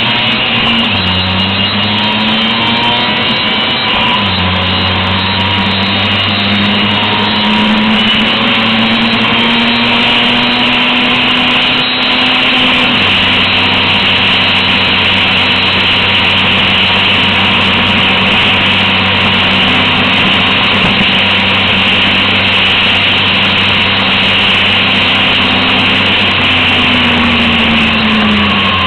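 Vespa T5's 125 cc two-stroke single-cylinder engine running under load as the scooter climbs a mountain road, its pitch dropping and rising again a few times.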